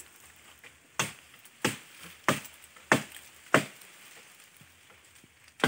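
Wood being chopped in a tree: five evenly spaced chops into a branch about two thirds of a second apart, then a pause and one more near the end.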